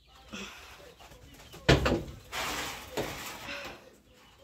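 A sharp knock about a second and a half in, followed by rustling and scraping, with soft, low calls from domestic geese.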